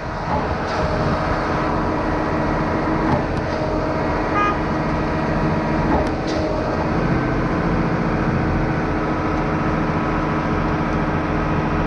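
Steady engine drone of a 38-metre concrete boom pump truck running while pumping concrete for a house slab.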